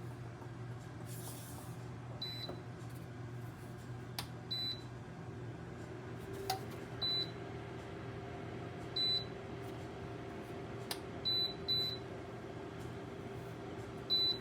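Dreo tower space heater's control panel beeping as its buttons are pressed: about seven short, high single-tone beeps spread across several seconds, two of them close together, with a few light clicks in between. Under them the heater's fan hums steadily.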